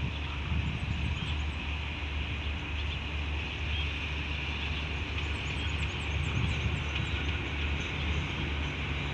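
Diesel locomotive engine running steadily at a low idle, with a deep even hum.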